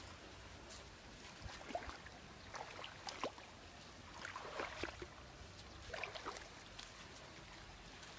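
Faint, scattered rustles and clicks of a large woven fish trap being handled and shifted on sand, over a low steady background noise.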